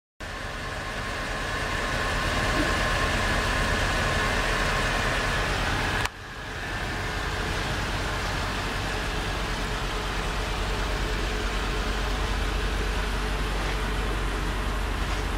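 Mercedes-Benz G500's 5.0-litre V8 engine idling steadily, with a sharp dip in the sound about six seconds in.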